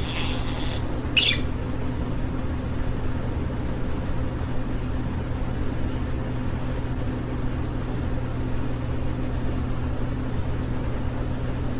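A budgerigar chirps twice, at the start and about a second in, then falls silent over a steady low hum.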